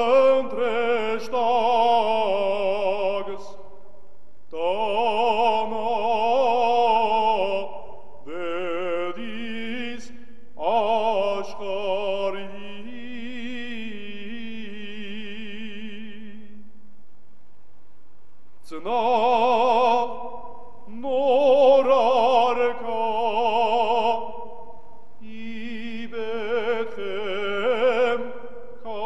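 A solo voice singing a slow melody with heavy vibrato, in long phrases broken by short pauses, with a longer pause of about two seconds just past the middle.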